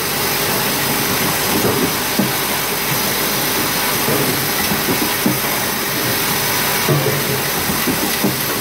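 Ear lug automatic feeding spot welder running: a steady mechanical noise with a few short, light clunks as its pneumatic electrode head presses down on tin can lids to weld on the ear lugs.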